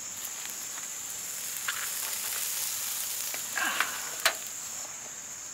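Whole goat carcass sizzling and crackling as it roasts on an iron grill over live charcoal, with scattered ticks and one sharp click a little past four seconds in.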